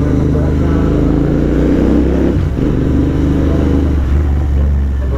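Royal Enfield Interceptor 650's parallel-twin engine, fitted with an aftermarket exhaust, running loudly while being ridden, with a brief dip about two and a half seconds in.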